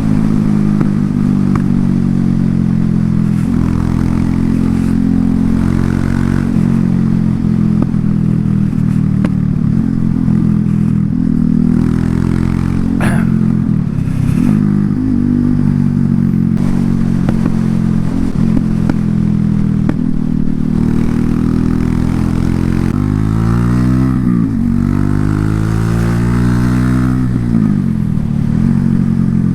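Loncin LX250-12C motorcycle's engine and exhaust running while riding, holding a steady note for most of the time. It revs up about three quarters of the way through, then drops back near the end. A brief sharp click sounds about halfway through.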